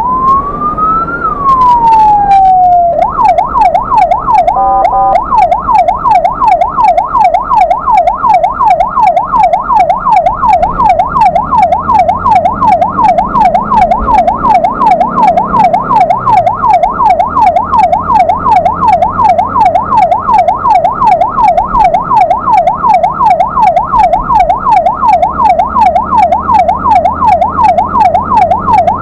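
Ambulance's electronic siren heard from inside the cab: a slow wail that rises and then falls, switching about three seconds in to a rapid, steady yelp that runs on. A brief horn blast cuts in shortly after the switch. Engine hum sits underneath.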